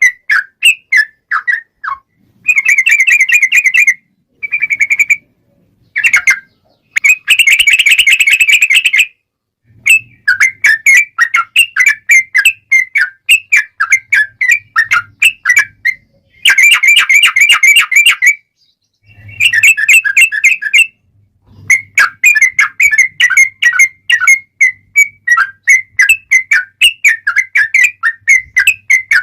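Sooty-headed bulbul (trucukan) singing in excited, fighting form: quick chattering whistled notes, broken by several long, dense rapid trills.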